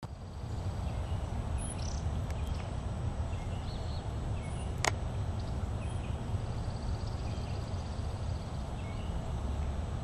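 Outdoor ambience with a steady low rumble, over which small birds give a few faint high chirps and a thin, faint trill. A single sharp click comes about five seconds in.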